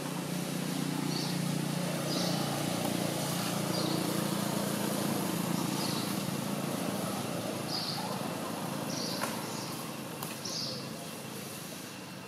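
Outdoor ambience: a low steady hum that fades after about seven seconds, with a bird giving short high chirps every second or two.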